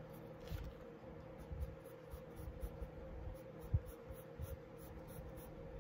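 Pencil scratching faintly on sketchpad paper in short, irregular strokes as a drawing is sketched.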